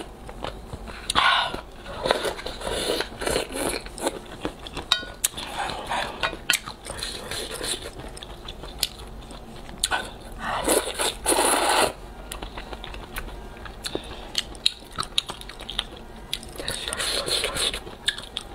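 Close-up eating sounds of rice noodle soup: chewing and slurping noodles and broth, with repeated small clicks and scrapes of chopsticks and a plastic spoon against a metal bowl. A longer slurp comes about ten seconds in as chopsticks lift noodles to the mouth.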